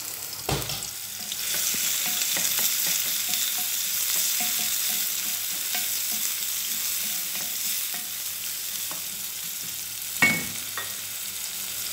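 Chopped onions sizzling in hot oil in a stainless steel pot while a wooden spoon stirs them; the sizzle swells about a second and a half in. A knock comes about half a second in and a sharp knock just after ten seconds.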